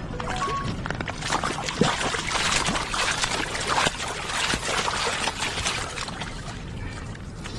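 Water splashing and trickling: a dense run of crackling splashes that grows about a second in and eases off near the end.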